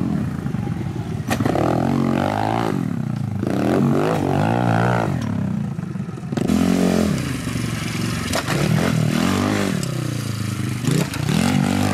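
Small pit bike engines revving up and easing off again and again, about five rises and falls in pitch, as the bikes are ridden over dirt jumps.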